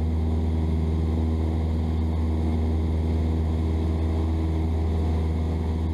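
Cessna 172's piston engine and propeller droning steadily in cruise, heard inside the cabin.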